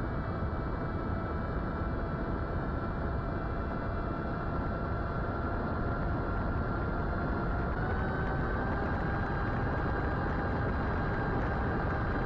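Brushless motor (Brotherhobby Avenger 2808 1500kv) and 8-inch propeller of an FPV plane whining steadily under heavy wind rush on the onboard camera's microphone. About two-thirds of the way through, the whine steps up in pitch as the throttle is opened.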